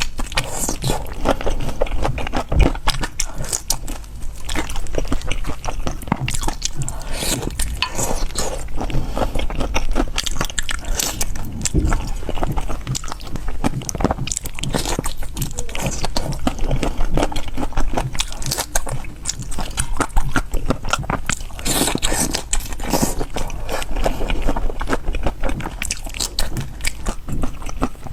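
A person eating crunchy food, biting and chewing, with many sharp crunches in quick succession.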